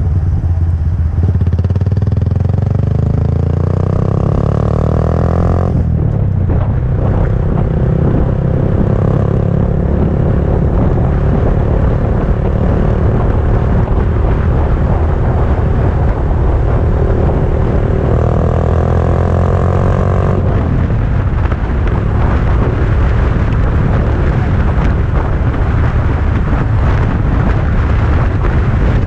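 Honda Grom's 125 cc single-cylinder four-stroke engine through a Yoshimura RS-2 exhaust, heard from the moving bike. Revs climb for the first several seconds and drop abruptly, hold steady, climb again and drop abruptly about twenty seconds in, then it runs on steadily.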